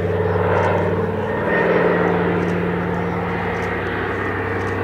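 The two Pratt & Whitney R-1830 Twin Wasp radial engines of a Consolidated PBY-5A Catalina flying boat droning in flight as it passes. Its low drone changes pitch about a second and a half in.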